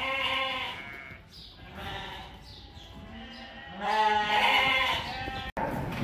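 Lambs bleating in a pen: a loud bleat at the start, a few fainter bleats, then a louder, overlapping run of bleats about four seconds in.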